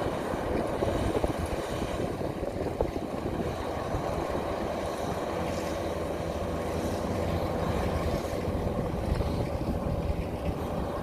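Kubota DC-93 combine harvester's diesel engine running steadily under load while it cuts rice in a flooded paddy, heard at a distance. A steady mid-pitched whine comes through more clearly in the last few seconds.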